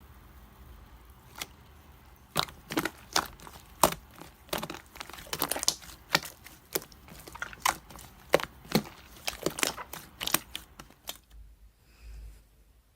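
Slime being pressed and squeezed by hand, giving irregular sharp sticky pops and crackles that stop about eleven seconds in.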